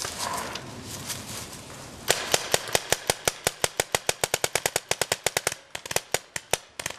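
Paintball markers firing rapid strings of shots, about eight a second, starting about two seconds in and thinning to scattered shots near the end.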